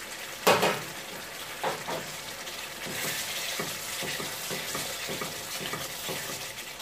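A slotted plastic spatula stirring a simmering curry of chicken, onion and capsicum in a pot, its strokes about twice a second over a steady sizzle. A knock against the pot comes about half a second in.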